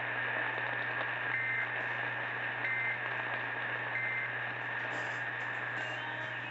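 Three short warbling data bursts, about 1.3 seconds apart, over radio static with a steady whine. These are the Emergency Alert System end-of-message (EOM) codes that close the severe thunderstorm warning.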